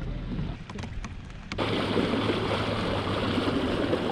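A few faint knocks of kayak gear being handled, then about a second and a half in a sudden switch to a steady rushing noise of wind and water out on the lake.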